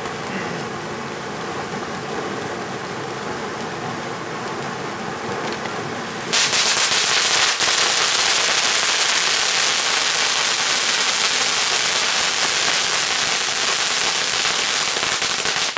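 Ground firework fountain spraying sparks with a steady hiss. About six seconds in it turns much louder, into dense crackling, and it cuts off near the end.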